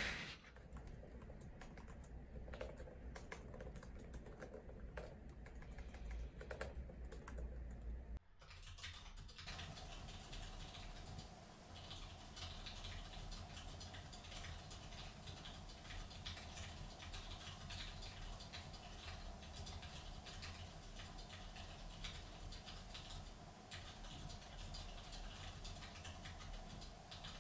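Typing on a laptop keyboard: a fast, continuous patter of faint keystroke clicks.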